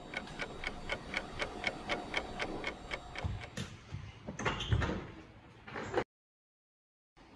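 Clock ticking fast and evenly, about four ticks a second, for about three and a half seconds. Then come a few dull thumps of a door being pushed and opened, and the sound cuts out to silence shortly before the end.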